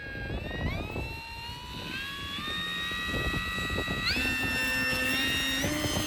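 Electric motor and propeller of an FMS Maule RC plane whining, its pitch stepping up several times as the throttle is advanced, over wind rumble on the microphone.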